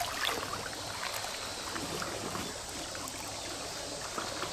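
Small waves washing against a rocky shoreline: an even watery noise with a few faint ticks.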